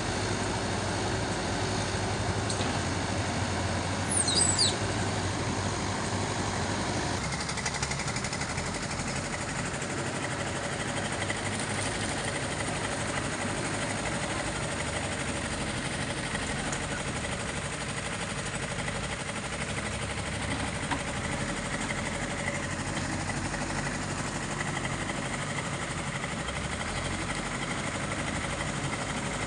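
Engine of heavy loading machinery running steadily, with a brief high squeal about four seconds in and a shift in the engine's note a few seconds later.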